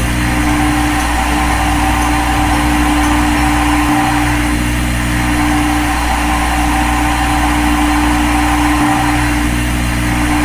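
CNC machine running steadily, a constant hum with a fixed tone and hiss.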